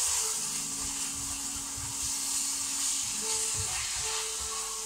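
Beef mince and ginger sizzling steadily in a hot frying pan as it is stirred with a wooden spatula.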